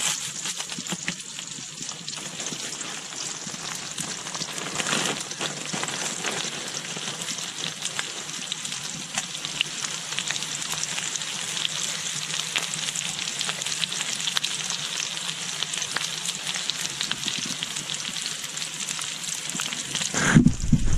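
Sliced mushrooms, asparagus and garlic sizzling in a frying pan: a steady hiss with small crackles and pops. Near the end comes a loud low bump and rumble lasting about a second.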